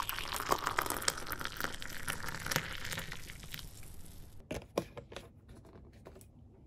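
Amazake, a fermented rice drink, pouring from a bottle into a glass tumbler: an irregular splashing pour that lasts about four seconds and tapers off, followed by a couple of light knocks.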